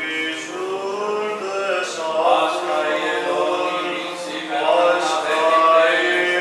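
Male voices singing Orthodox Byzantine chant in slow, long-held notes that glide between pitches, at the Paschal (Easter) service.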